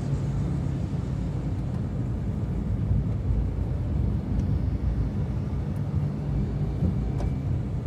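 Steady low rumble of travel along a road: wind and road noise on the microphone of a moving camera.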